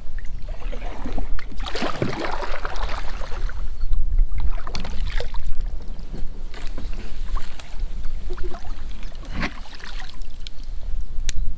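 Double-bladed paddle strokes dipping and splashing in the river beside an inflatable packraft, coming at irregular intervals with the biggest splash about two seconds in. A steady low wind rumble on the microphone runs underneath.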